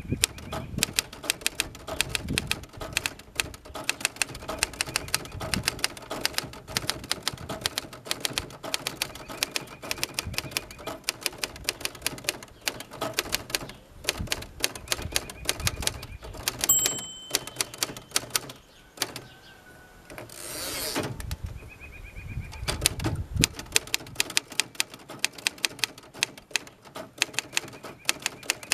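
1963 Royal Empress manual typewriter being typed on: a fast, uneven run of typebar strikes. About seventeen seconds in, the margin bell dings once. After a short pause, the carriage is returned with a one-second rushing zip, and typing starts again.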